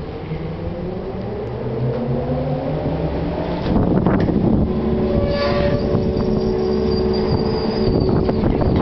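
Car ferry's engine running as it manoeuvres at the landing ramp, its pitch shifting in the first few seconds. About four seconds in a loud rumbling clatter, and after it a steady engine hum with a thin high whine.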